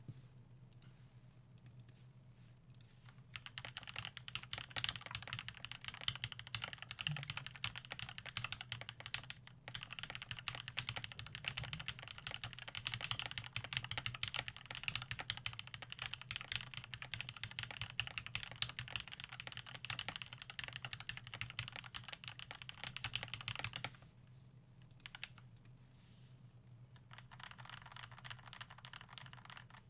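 Typing on a Gamakay LK67 custom mechanical keyboard with Krytox-lubed Gateron Cap Yellow V2 linear switches and PBT keycaps. A few single keystrokes give way to a fast, dense run of keypresses about three seconds in. The typing slows to scattered presses for a few seconds near the end, then picks up again, over a low steady hum.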